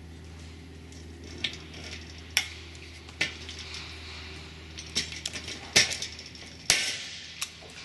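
Marson pop-rivet tool pulling an aluminum pop rivet through an aluminum wedge: a series of sharp metallic clicks and clinks as the nose is seated and the handles are squeezed. The loudest clicks come in the second half, as the rivet sets.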